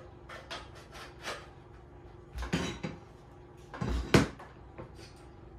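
Metal frame rails of an XTool D1 laser engraver clicking and knocking together as they are fitted and set down on a table. Several light clicks come first, then a clatter, and the loudest knock comes about four seconds in.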